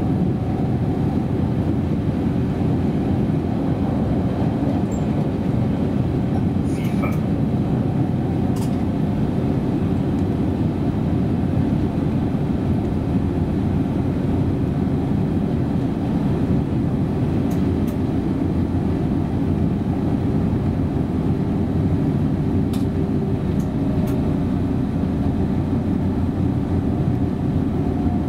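Berlin S-Bahn electric train running along the track, heard from the driver's cab: a steady rumble of wheels on rails with a faint steady tone and a few light clicks.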